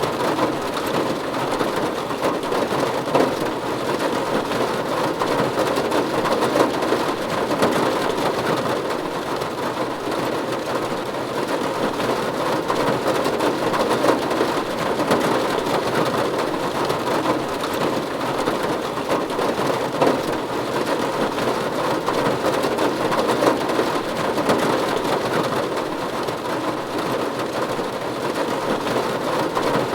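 Steady rain falling on a roof: an even, dense wash of drops with no let-up.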